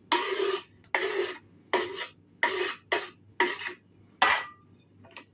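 Rhythmic rasping, scraping strokes, about seven in a row, roughly one every two-thirds of a second.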